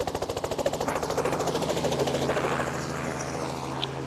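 Helicopter coming in to land: the rotor thuds in quick, regular beats over a steady engine drone, and the beats fade out over the second half.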